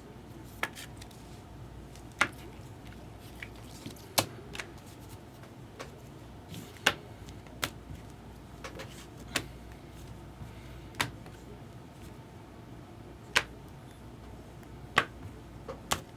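Trading cards and rigid plastic top loaders being handled on a table: about a dozen irregular sharp clicks and taps, over a low steady hum.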